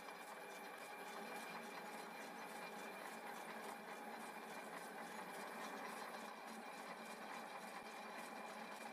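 Centre lathe running at reduced spindle speed while cutting an external thread: a steady mechanical running noise with a thin high whine and a light, regular ticking.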